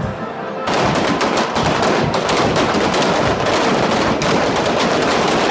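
Fireworks crackling: a dense, rapid run of sharp cracks like a string of firecrackers, starting about a second in and cutting off abruptly.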